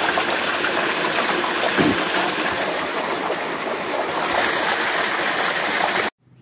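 Water pouring from the outlet of a motor-driven irrigation pump into a field channel: a steady rush that cuts off suddenly near the end.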